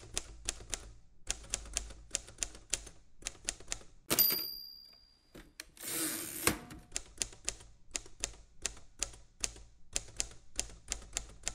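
Typewriter sound effect: keys clacking in quick, uneven strokes, about three or four a second. About four seconds in comes a single ringing ding, the typewriter's bell. Around six seconds a rasping carriage-return slide ends in a clack, and then the typing resumes.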